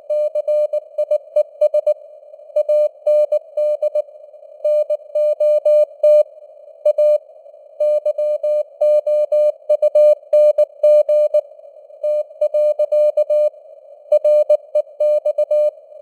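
Morse code (CW) sent at 19 words per minute: a single mid-pitched tone keyed on and off in dots and dashes, with short gaps between letters and longer ones between words. A narrow band of simulated radio-receiver hiss sits under the tone.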